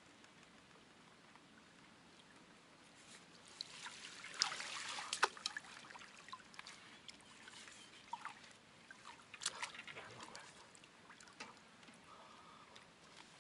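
A hooked fish splashing in shallow water as it is drawn into a landing net, with a flurry of sharp splashes about four to six seconds in and a shorter one near ten seconds, and water trickling between.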